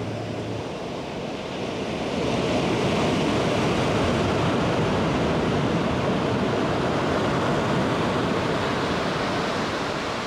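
Ocean surf washing in, a steady rush that swells about two seconds in and eases off near the end.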